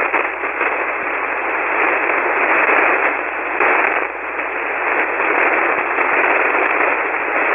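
Loud, steady static hiss from a ham radio receiver tuned to 40-metre single-sideband, with no voice coming through it. The band is full of lightning static.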